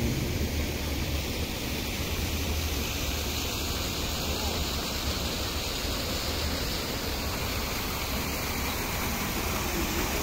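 Steady rushing hiss of water pouring from a stone fountain's carved animal-head spouts into its pool.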